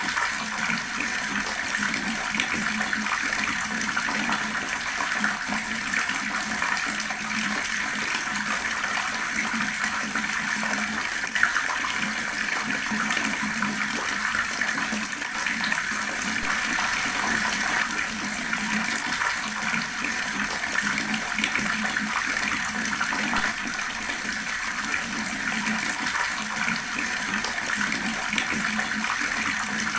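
Water tap running steadily, its stream gurgling and splashing.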